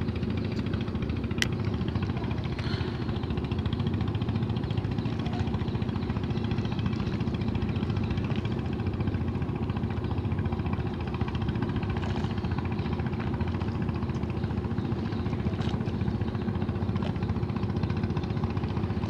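An engine idling steadily, a low even drone that does not change, with one sharp click about a second in.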